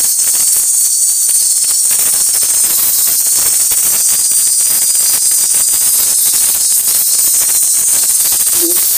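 Paratha frying in oil on a hot iron tawa: steady, loud sizzling with fine crackling.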